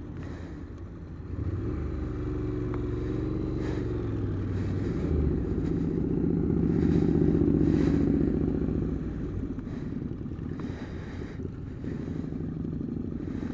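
Motorcycle engine running at low speed while the bike is ridden slowly and manoeuvred into a parking spot. The engine note swells for a couple of seconds in the middle, then settles back.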